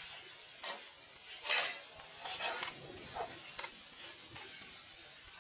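A series of short scraping and rubbing strokes, the two loudest just under a second apart near the start, with fainter ones after.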